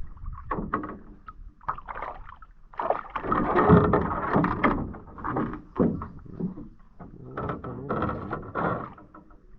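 Irregular knocks and scrapes from a small boat as fishing gear is handled, busiest and loudest about three to five seconds in.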